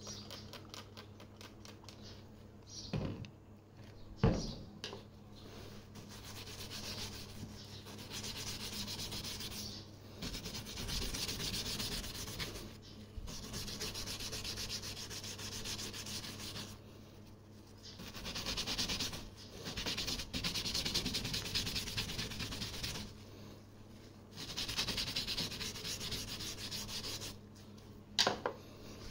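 A detailing brush scrubbing a car window's rubber weatherstrip wet with all-purpose cleaner, in spells of quick rubbing strokes lasting a few seconds each with short pauses between. Two short spray-bottle squirts come a few seconds in.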